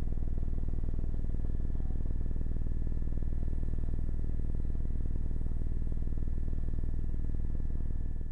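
Steady low drone of aircraft engines with a quick, even flutter, and a faint steady high whine above it.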